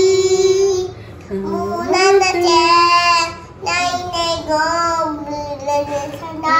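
A young girl singing in long held notes, with short pauses between phrases.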